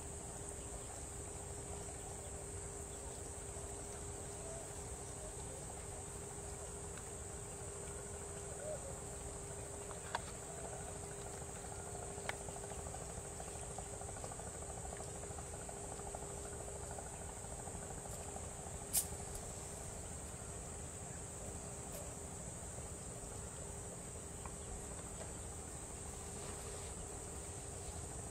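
A steady, high-pitched insect chorus over a low steady hum, with a few brief sharp clicks, the loudest about two-thirds of the way through.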